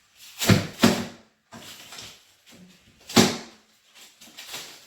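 Hard knocks and thuds of things being handled and set down: two close together about half a second in, and a single loud one a little after three seconds.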